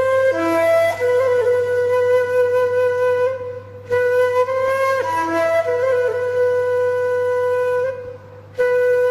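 Background flute music: slow phrases of long held notes, with short pauses about three and a half seconds and eight seconds in.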